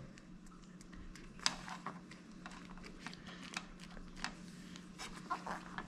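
Faint scattered clicks and light rustles of fingers handling a black plastic sealing clip and a soft extraction sleeve pressed onto a steel plate, over a low steady hum.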